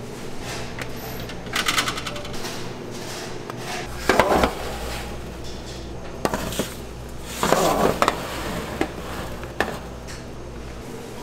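Metal pans and utensils clattering and knocking in a bakery workroom: a rattle, then several louder knocks and clatters at irregular intervals over a steady machine hum.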